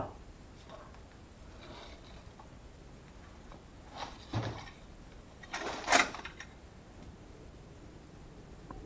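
A few brief scuffs and knocks of someone moving about on a debris-strewn floor, over faint room tone. The loudest comes about six seconds in.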